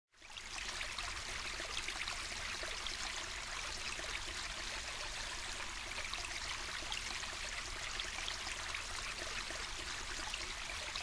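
Steady rushing hiss with a low hum underneath, starting a moment in and holding level without change.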